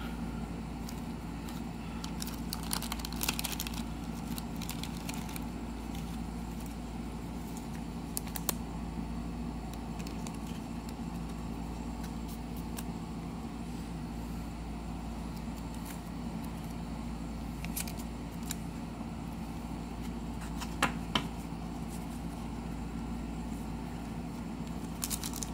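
Steady low hum of room noise, with a few scattered soft clicks and rustles as trading cards are handled.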